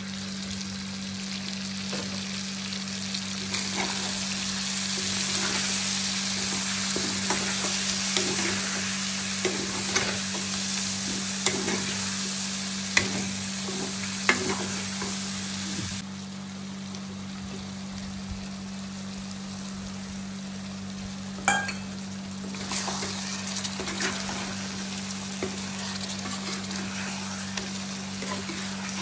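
Chicken pieces sizzling in oil in a kadai while a masala paste is stirred through them with a steel spoon, the spoon clicking and scraping against the pan. The sizzle drops abruptly about halfway through, and a steady low hum runs underneath.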